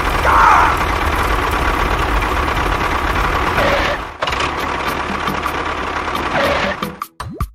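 A small tractor-type engine running steadily, broken off briefly about four seconds in and then resuming. Near the end it stops and gives way to a run of sharp clicks.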